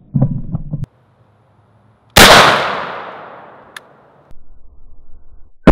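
A 12-gauge DP-12 bullpup shotgun firing a 1 ounce slug: one very loud shot about two seconds in, its sound fading away over about two seconds, and a second shot right at the end. A short run of low knocks comes in the first second.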